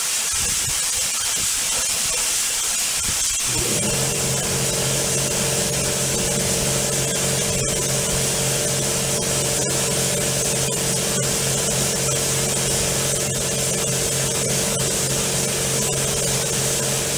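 Old siphon-cup spray gun hissing steadily as it sprays finish onto a wooden snare drum shell. About three and a half seconds in, a steady motor hum joins and holds under the hiss.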